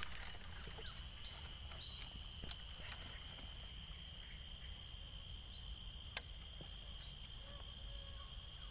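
Quiet swamp ambience: a steady, high-pitched insect drone with a low rumble beneath. A few sharp clicks come at about two seconds, two and a half seconds, and six seconds in.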